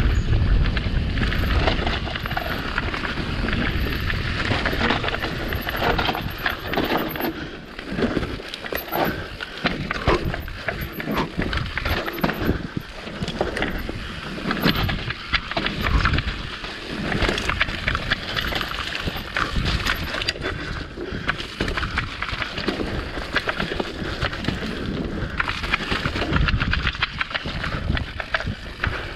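Mountain bike ridden fast downhill on a dirt trail: tyres crunching over gravel and roots with constant rattling clicks and knocks from the bike. Wind rumbles on the microphone during the fast opening stretch.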